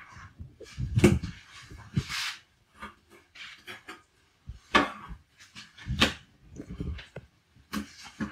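Irregular knocks and soft thuds as pieces of raw small tuna are moved and set down on a wooden cutting board, with a few short scrapes.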